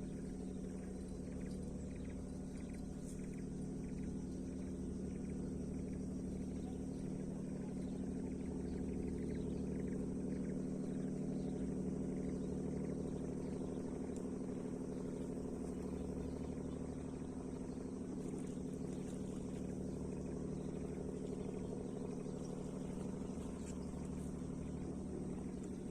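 A steady, unchanging low motor hum, with a constant high shrill of insects over it.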